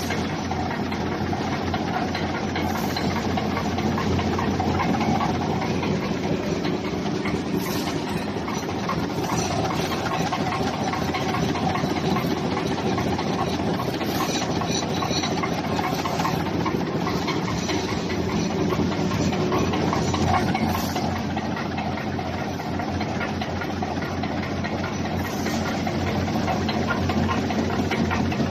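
Wire basket and mesh-making machine running steadily: a continuous mechanical hum with a few faint ticks.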